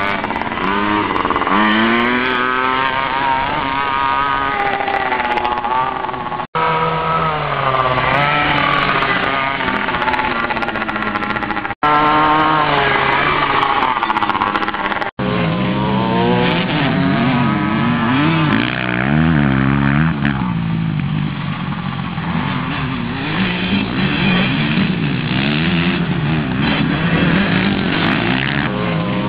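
Small 50cc two-stroke kids' motocross bike revving up and down around a dirt track, its pitch rising and falling with each throttle change. After a few abrupt cuts, a deeper motocross engine revs in the same way.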